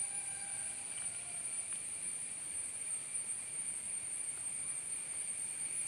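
Steady, high-pitched insect chorus, a continuous shrill drone with no break.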